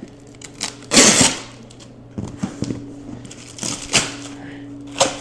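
Heavily secured cardboard box being opened by hand: the cardboard and packing are handled in bursts, a loud one about a second in and another near four seconds, with scattered clicks and knocks between, over a steady low hum.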